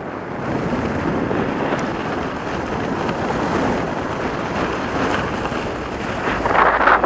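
Steady wind rush buffeting the microphone, mixed with the hiss of skiboards sliding over snow during a downhill run. The noise swells briefly near the end.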